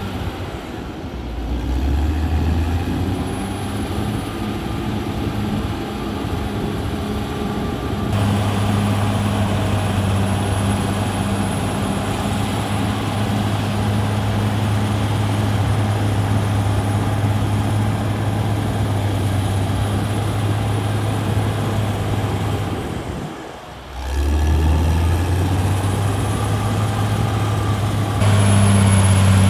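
Cat D6R XL bulldozer's diesel engine running steadily under work, a deep constant drone. It breaks off briefly about three-quarters of the way through and changes level abruptly a few times, as between joined clips.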